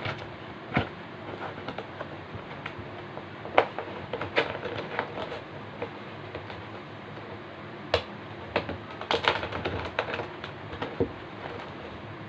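A clear hard-plastic box being handled and turned over, giving irregular sharp clicks and taps, with a quick run of clicks near the end.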